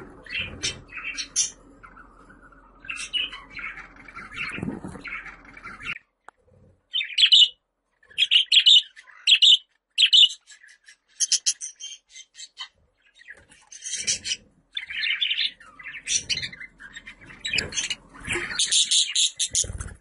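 Budgerigar chirping and chattering in a run of quick, varied high chirps. Louder, sharper calls come from about seven seconds in, and the chatter grows dense near the end.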